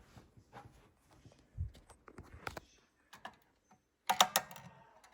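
Sparse faint clicks and taps, with a soft thump under two seconds in; about four seconds in, a burst of loud, quick clicks with a ringing edge.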